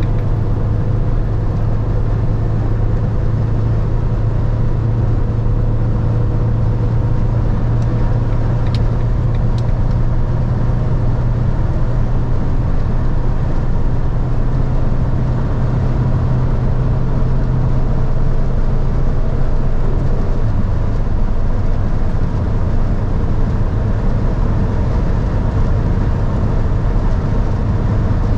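Inside the cabin of a 2013 Fiat Ducato van at high autobahn speed: its 2.3-litre Multijet turbodiesel makes a steady low drone under heavy wind and road noise as the van slowly gains speed. A couple of faint clicks come about nine seconds in, and the low drone eases about twenty seconds in.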